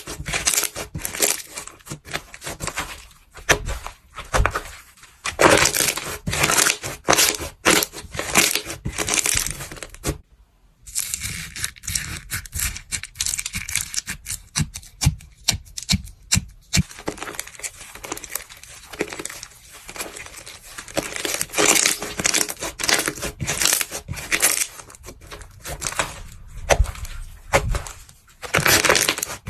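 Close-up crackling, crunching and tearing of a crunchy material being crushed and squeezed, as in slime and clay-cracking ASMR. There is a brief silent break about ten seconds in, and the sound changes again a few seconds later.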